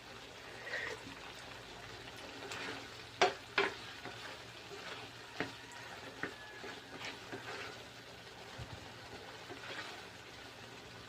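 Giniling (ground meat with beans) sizzling in a pan while it is stirred, with a spatula knocking and scraping against the pan; two sharp clacks a moment apart about three seconds in are the loudest.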